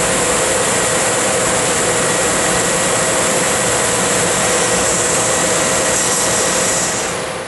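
A Tanaka 6 kW laser cutting head cutting 1-inch mild steel plate: a loud, steady rushing hiss from the nozzle's assist-gas jet and the cut, with a few steady tones in it. It fades out at the very end.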